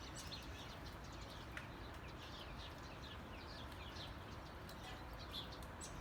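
Small birds chirping faintly: a steady run of many short, quick, downward-sweeping chirps.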